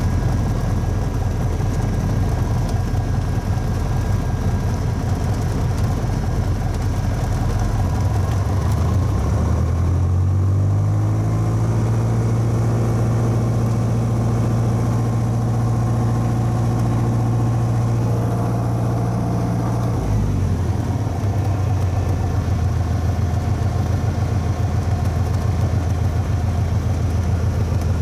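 Light single-engine propeller plane's engine and propeller running, heard from inside the cockpit while taxiing onto the runway. About ten seconds in the engine speeds up, holds steady for about ten seconds, then drops back to its lower speed.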